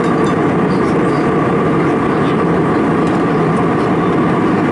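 Airliner cabin noise at cruise: a steady roar of jet engines and airflow, with a faint steady whine above it.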